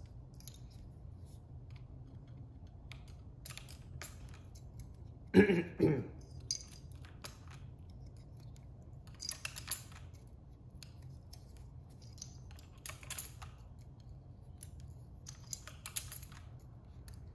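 Scattered plastic clicks and snaps of keycaps and switches being pulled from and pressed into a Keychron Q6 mechanical keyboard's number pad, some in quick clusters. A brief vocal sound about five seconds in is the loudest thing.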